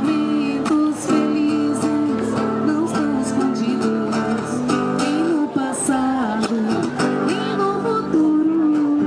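Acoustic guitar strummed and plucked, with a woman singing long, sliding notes over it, played through a small amplifier.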